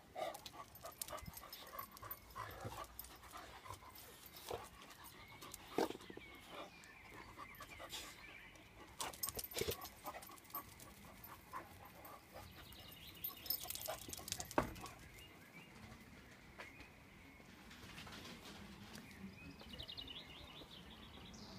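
A Shar Pei puppy and an adult Shar Pei play-fighting: irregular scuffles and taps, with dog panting and small dog noises.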